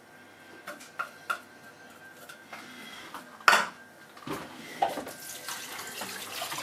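Kitchen clatter of dishes and utensils: a few light knocks, then one loud clank about three and a half seconds in. Near the end a tap runs water into the kitchen sink.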